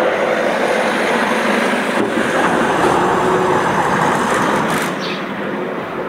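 Steady rushing noise of a passing vehicle, easing off a little near the end.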